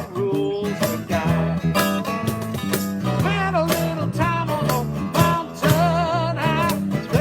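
Guitar-led music: strummed chords over a steady low bass, with bending, wavering melody notes.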